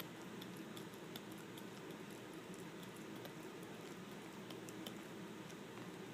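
Maltese dog chewing: faint, irregular little clicks from its mouth over a steady low hum.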